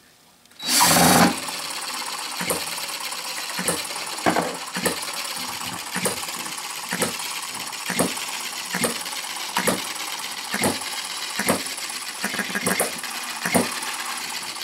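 Retrol HM-01 7cc four-stroke hit-and-miss model engine, spun by a cordless drill for about a second before it catches and runs on its own. It runs with a steady mechanical clatter and sharp pops about twice a second, unevenly spaced, as it fires only on some strokes.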